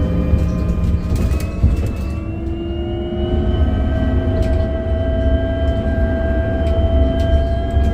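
MAN Lion's City 12E battery-electric bus drive motor whining over a heavy low rumble. The whine rises in pitch over the first few seconds as the bus picks up speed, then holds steady.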